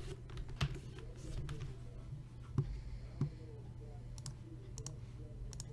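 Scattered clicks of a computer mouse and keyboard, a few sharp ones spaced a second or two apart, over a faint steady low hum.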